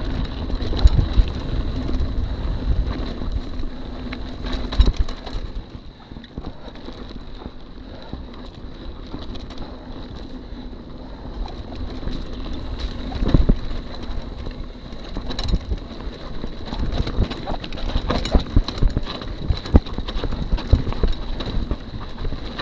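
Mountain bike rolling down a bumpy dirt trail: wind buffets the microphone while the bike rattles and knocks sharply over bumps. The noise eases off for several seconds in the middle, and a faint steady high tone runs underneath.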